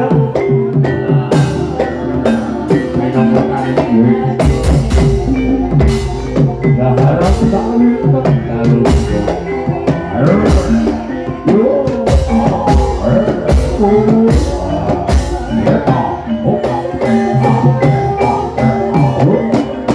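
Ebeg (Javanese hobby-horse trance dance) accompaniment music: ringing pitched percussion with frequent drum strokes. A low bass beat comes in about four seconds in and drops out for the last few seconds.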